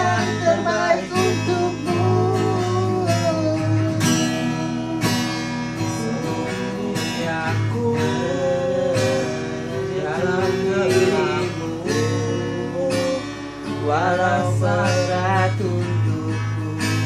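Steel-string acoustic guitar strummed in a steady rhythm under a harmonica carrying a wavering melody line, with a man's voice singing along at times.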